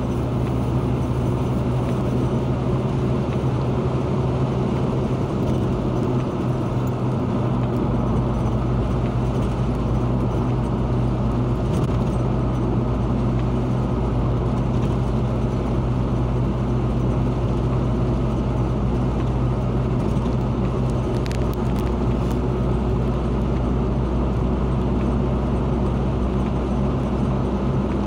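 Car engine and tyre noise heard from inside the cabin while driving at road speed: a steady low hum over an even road rush, with the deep rumble growing stronger about eight seconds in.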